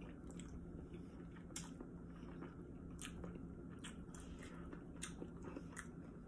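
Close-up mouth sounds of a person chewing cheese-covered Korean rice cakes (tteokbokki): soft, wet chewing with scattered short smacks and clicks about once a second.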